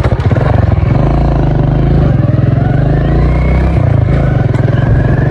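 Small motorcycle engine running steadily while under way, heard close up from the pillion seat.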